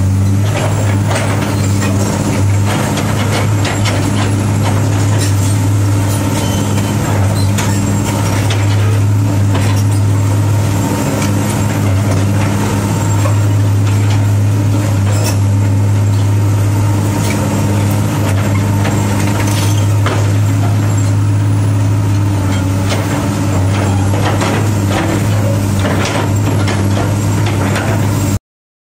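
Komatsu PC200-8 hydraulic excavator's six-cylinder diesel engine running steadily with a deep hum, with scattered clanks and clicks as the machine works. The sound cuts off suddenly near the end.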